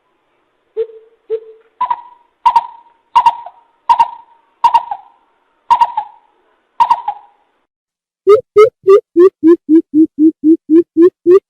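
Coucal calling: a few deep single hoots, then a string of higher, sharper notes, then from about 8 s a fast even run of deep hoots, about three a second.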